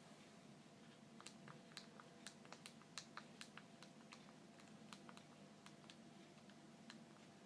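Faint clicks of mobile phone keypad buttons being pressed, about two or three a second for a few seconds, then a few more spaced out near the end.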